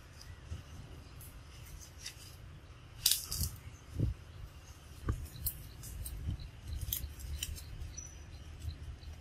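A monkey feeding on mango in a tree: scattered crisp crackles and clicks of leaves and twigs, the loudest cluster about three seconds in, and a few low thumps a second or two later as it shifts on the branch.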